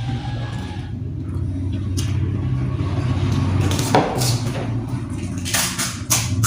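Crisp pani puri shells crunching and cracking as they are eaten: a few sharp crunches, a cluster of them near the end, over a steady low hum.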